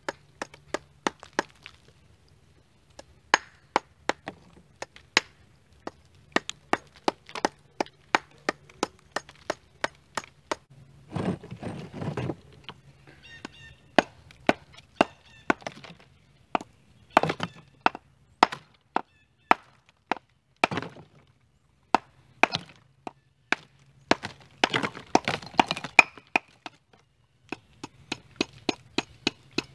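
Hammer chipping old mortar off a reclaimed brick: quick, sharp strikes of steel on brick and mortar, about three a second in bursts with short pauses. Twice the strikes run together into a longer clatter.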